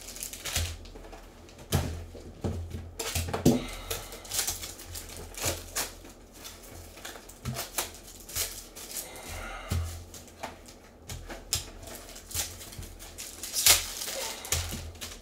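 Trading cards and their packaging handled with gloved hands: irregular clicks, taps and light rustles as cards are pulled, stacked and set down on the table, with one louder tap near the end.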